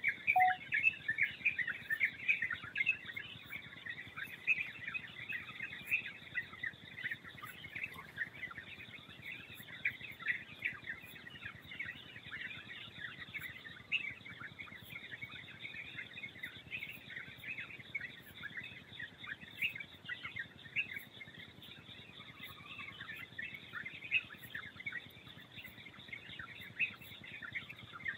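Many small birds chirping at once in a dense, continuous chorus of short overlapping calls, busiest at the start, with a steady high hum underneath.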